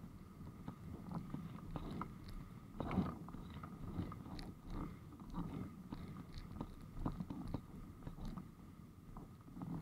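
Muffled rumble of a windsurf board sailing over light chop, with irregular knocks and clicks from the board and rig. The loudest knock comes about three seconds in.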